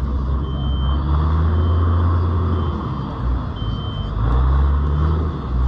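Heavy truck engine running at a low pitch, with a backup alarm beeping roughly once a second.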